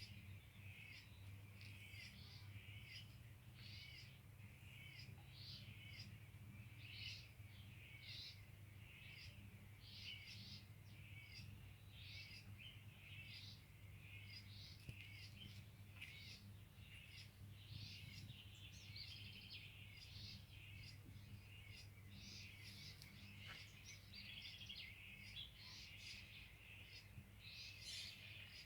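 Small birds chirping faintly, many short high chirps overlapping one after another, over a low steady hum.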